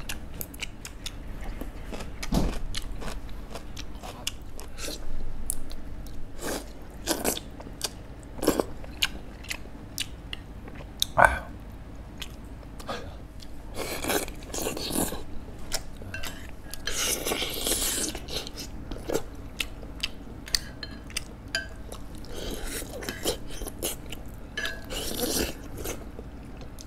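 Close eating sounds of samgyetang (ginseng chicken soup): wet chewing and smacking on chicken meat, with many sharp mouth clicks and a few longer sucking, slurping stretches about halfway through.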